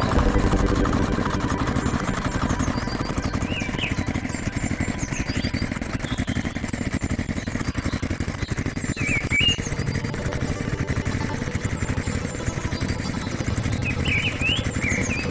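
An engine running steadily with a fast, even rumble. Short bird chirps come three times, about four, nine and fourteen seconds in.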